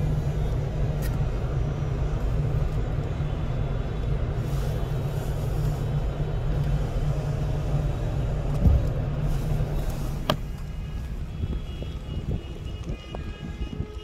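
Road and engine noise in a moving car's cabin: a steady low rumble. About ten seconds in there is a sharp click and the rumble drops away, and faint higher steady tones come in near the end.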